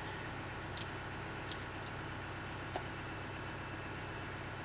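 A few light clicks and small rustles of saddle tack being handled and adjusted on a standing horse, over a steady background hiss.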